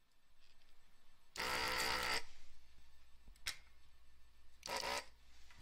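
Electric desoldering tool's vacuum pump buzzing in two bursts, one lasting most of a second and a shorter one near the end, as it sucks molten solder from a capacitor's pads on the power supply board. A short click comes between the two bursts.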